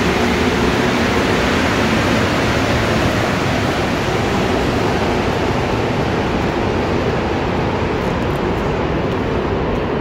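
Rubber-tyred Montreal Metro train pulling out of a station: a loud, steady rush of running noise with a faint tone that fades about a second in, the noise easing slightly as the train leaves.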